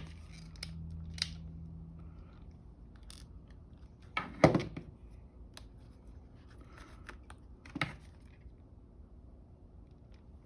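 Light clicks and knocks of laptop parts and plastic being handled on a work mat, with a louder clatter about four and a half seconds in and another near eight seconds.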